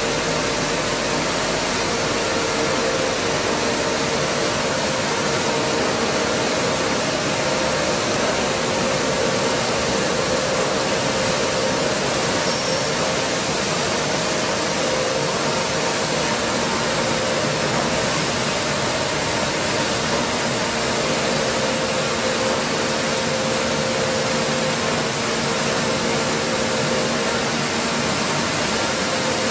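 Stone flour mills running in a mill hall: a steady, even machine noise with a constant hum running through it.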